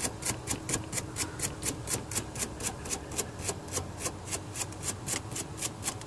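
A wire brush scrubbing the corroded copper strands of a battery cable end, in quick, even back-and-forth strokes about four a second, scouring off the corrosion.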